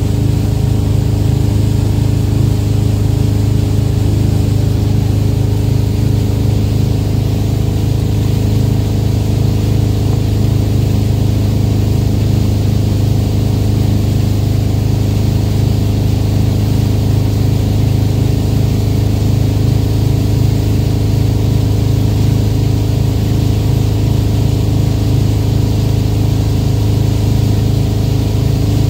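Towboat's engine running steadily under way, a low even drone, with the rush of the boat's wake and spray over it.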